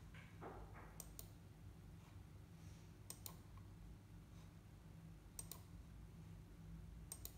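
Faint clicks of a computer mouse: four quick double clicks about two seconds apart, over a low steady hum.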